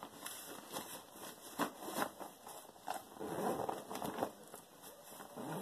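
Fabric backpack and the things going into it rustling and scraping as they are handled and packed, with irregular small clicks and knocks. The rustling thickens for about a second a little past halfway.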